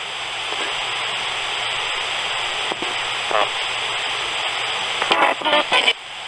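RadioShack 20-125 portable radio sweeping the FM band as a ghost box: a steady hiss of static broken by brief, clipped fragments of broadcast voices, a couple around three seconds in and a cluster near the end. That final cluster is taken as a spirit voice saying "one more minute please."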